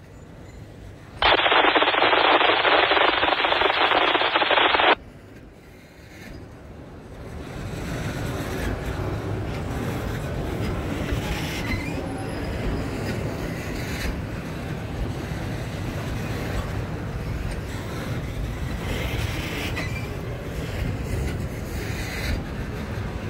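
Double-stack container train rolling past: a steady rumble of steel wheels on rail, with occasional sharp clacks as wheels cross rail joints. In the first few seconds a loud noise lasts about four seconds and cuts off suddenly.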